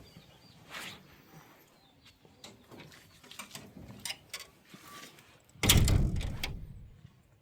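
A door being opened with small clicks and rattles, then shut with one loud bang a little over five seconds in, the bang dying away over about a second.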